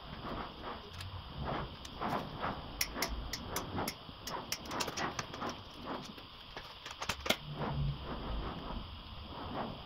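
Hard plastic parts of a car radiator grille frame and a honeycomb mesh panel being handled and fitted together: scattered light clicks, taps and knocks, with the sharpest click about seven seconds in.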